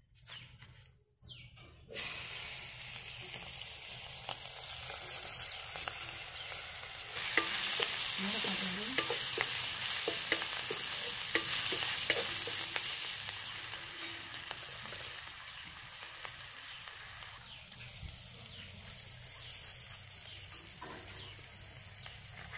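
Sliced vegetables sizzling as they fry in hot oil in an aluminium karahi, stirred with a metal ladle that clicks against the pan a few times. The sizzle starts about two seconds in, is loudest in the middle, and dies down near the end.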